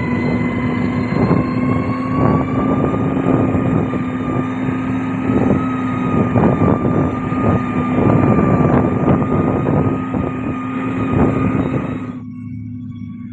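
Heavy diesel road-construction machine running under load, a steady engine drone with a slowly rising whine, mixed with irregular crunching and clanking from the work. The sound cuts off suddenly near the end, leaving a quieter steady hum.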